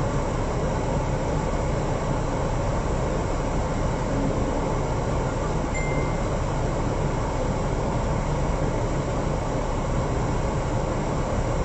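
Steady low rumble of a car running in deep street floodwater, heard from inside its cabin.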